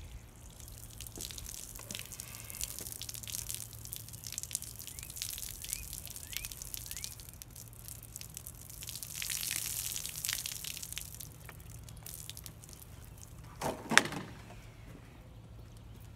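Water spilling and dripping from a cut plastic soda bottle, with crackling of the thin plastic as it is handled; a single sharp knock near the end as a bottle is set down.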